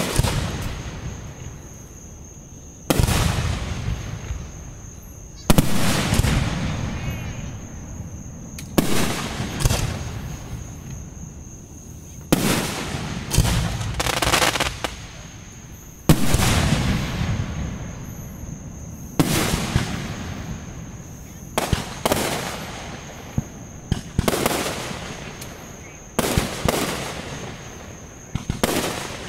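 Aerial fireworks shells bursting in a display: a sharp boom every two to three seconds, each trailing off in a fading rumble of echo.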